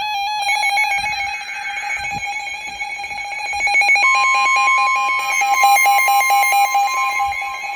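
NOAA Weather Radio tornado warning alert. A buzzy data burst sounds in the first two seconds, and a steady warning tone of about 1050 Hz starts about four seconds in. Under both, a weather radio receiver's alarm beeps in rapid, even pulses.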